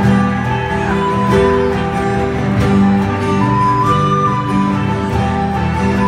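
Instrumental passage of a folk-rock song: strummed acoustic guitar with fiddle playing a melody line, no singing.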